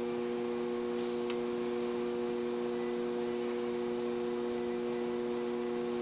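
Electric potter's wheel running with a steady hum of a few held tones, with a couple of faint ticks.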